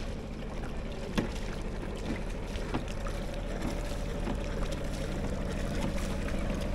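Small sailboat's motor running steadily at low speed while the boat motors along, with a few light clicks and knocks.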